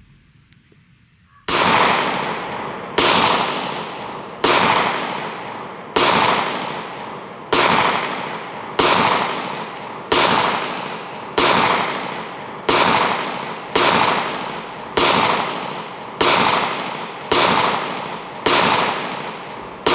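Glock 20 10mm pistol firing .40 S&W rounds in slow, even single shots, about fifteen of them, one every second and a half or a little less, starting about a second and a half in. Each shot rings out with a long fading echo, and the pistol cycles through the string without a malfunction.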